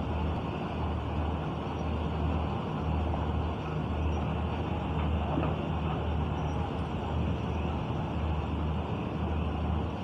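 Low diesel engine drone that throbs about once a second, over a steady wash of machinery noise. It comes from the engines of the docked cargo ship and the trucks waiting beside it at the quay.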